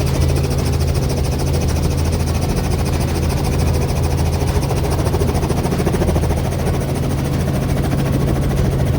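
Helicopter engine and rotor running steadily, a loud, even low drone.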